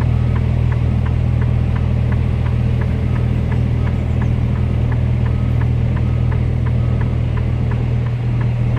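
Mercedes-Benz Antos 1833's 10.7-litre six-cylinder diesel running steadily at low speed, heard from inside the cab as the truck creeps forward. A light, regular ticking sounds about three times a second over the engine.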